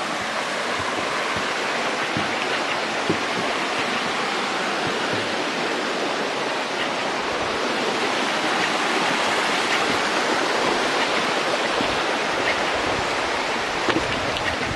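Kimsey Creek, a small mountain creek, rushing steadily in an even, continuous wash of water noise, heard close up from the footbridge over it.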